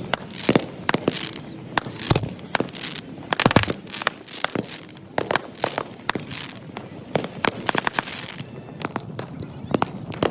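Many consumer fireworks going off on a beach: a dense, irregular string of sharp bangs and pops, several a second.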